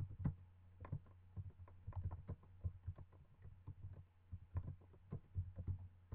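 Newborn kittens suckling and shifting against their mother cat: irregular soft clicks and small thumps in uneven clusters, over a steady low hum.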